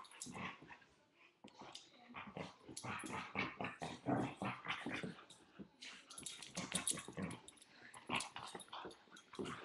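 A bearded collie and a Chesapeake Bay retriever play-fighting, with growling in short irregular bursts.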